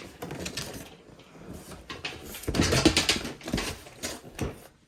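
Packaging being handled during an unboxing: scattered rustles, scrapes and light knocks, busiest around the middle.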